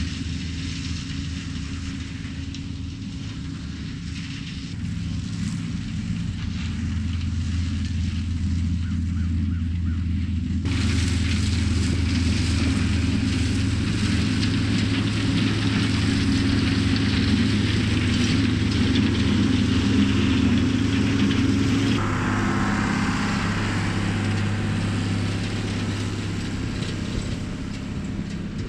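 Tractor engine running steadily under load while pulling a flail stalk shredder through corn stalks. About ten seconds in, a dense rushing noise from the shredding suddenly joins the engine hum; it thins out again a little after twenty seconds.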